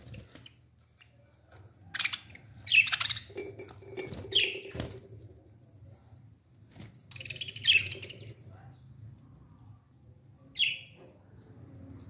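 Budgerigars giving short, harsh chirps and squawks, about five scattered calls, over a faint steady low hum.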